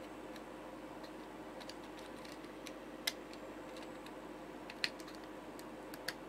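Small, scattered clicks and ticks of a screwdriver driving screws into a 3D-printed PLA case, with three sharper ticks about three, five and six seconds in, over a faint steady hum.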